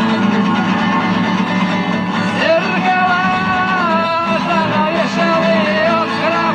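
Rock song: a strummed guitar, joined about two and a half seconds in by a man's voice singing long, sliding notes.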